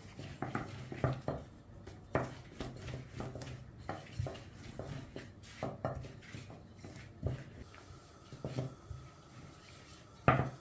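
Long thin wooden rolling pin (oklava) rolling out yeast dough on a floured silicone pastry mat, making irregular light knocks and taps as the pin is rolled back and forth and set down, with one louder knock near the end.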